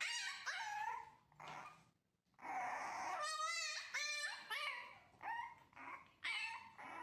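A French bulldog puppy whining and whimpering in a string of short, high calls that bend up and down, with one wavering call near the middle and a brief pause about two seconds in.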